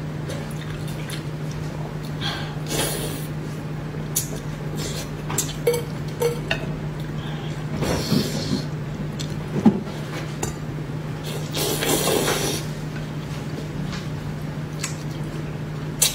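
Chopsticks clicking and scraping against a plate and a metal bowl as braised fish in sauce is picked apart and eaten, with short wet eating sounds between the clicks. A steady low hum runs underneath.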